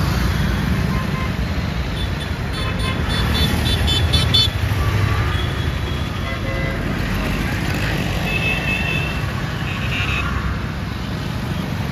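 Busy street traffic of motorbikes, auto-rickshaws and cars: a steady engine and road rumble, with vehicle horns tooting here and there, a quick run of toots about three to four seconds in.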